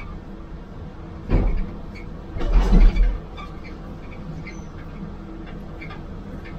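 Caterpillar excavator's diesel engine running steadily, heard from inside the cab. Demolished concrete crashes down twice: briefly about a second and a half in, then louder and longer around two and a half to three seconds in.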